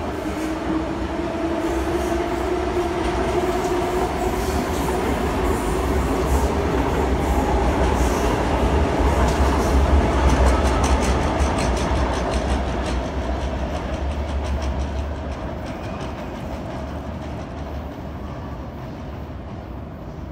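Double-deck electric passenger train passing below and pulling away, its motors giving a whine that slowly rises in pitch over a deep rumble, with the wheels clicking over the rail joints. Loudest about halfway through, it then fades as the train recedes.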